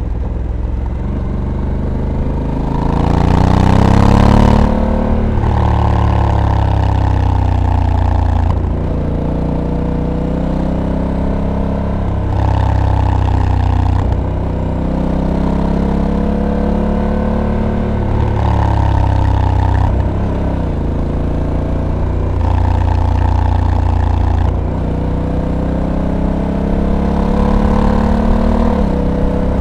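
Honda Africa Twin's 1084 cc parallel-twin engine under way, its pitch climbing under acceleration and dropping back again about five times. It is loudest as it climbs about four seconds in.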